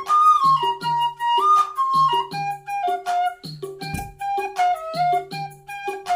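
Instrumental music: a flute melody stepping from note to note over a steady, repeating beat, with one sharper hit about four seconds in.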